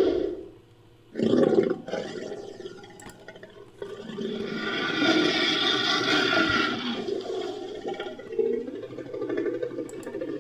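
Synthetic Neovenator dinosaur vocalizations built from layered animal and monster sound effects: a short roar about a second in, then a long rumbling roar in the middle, and lower growls near the end.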